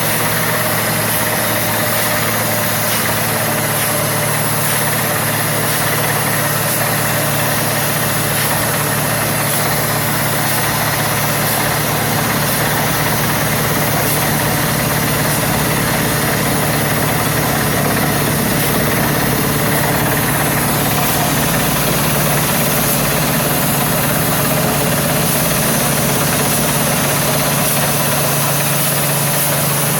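Water-well drilling rig running: a loud, steady engine drone with a continuous hiss over it, unchanging throughout.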